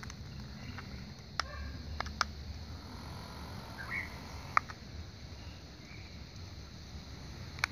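A few sharp plastic clicks from the buttons of a toy steering-wheel RC remote being pressed, over a low steady outdoor rumble. There is a short high chirp about four seconds in.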